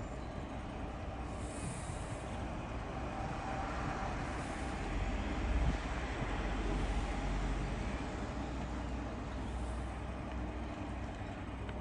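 The Fair Maid workboat's engine running with a steady low rumble, louder for a couple of seconds around the middle, as the boat works at plough dredging.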